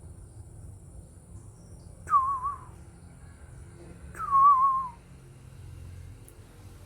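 White-rumped shama (murai batu) giving two fluty whistles about two seconds apart, each starting sharply and sliding down in pitch with a wavering warble.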